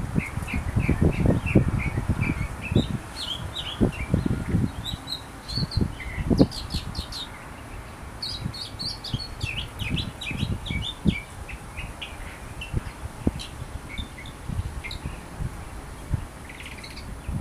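Mockingbird singing a varied run of short, high chirping phrases, each note repeated several times before switching to the next, thinning out in the second half. Low rumbling thuds on the microphone come and go underneath.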